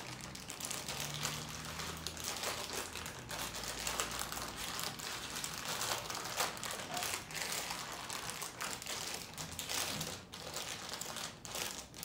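Thin plastic wrapper of a Happy Meal toy crinkling and rustling in irregular handfuls as it is squeezed and worked open by hand.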